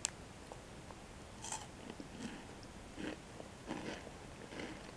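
Chewing a mouthful of Kit Kat chocolate wafer, with soft crunches and mouth sounds coming about once a second.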